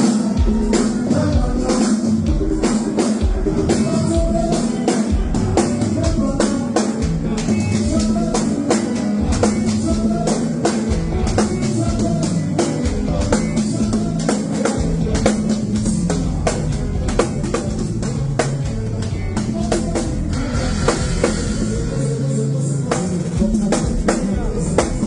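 Konpa band music: a drum kit keeping a steady beat under a moving bass line and sustained keyboard tones.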